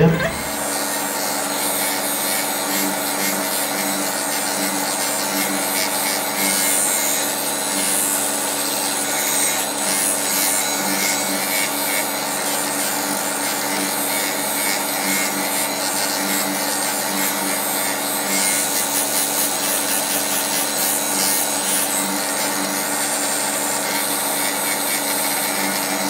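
Percussive massage gun running steadily with a constant motor hum.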